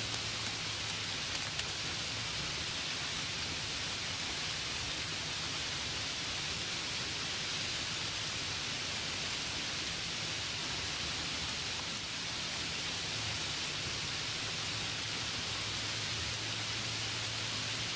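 Steady, even hiss with a faint low hum under it, and a few light ticks in the first couple of seconds.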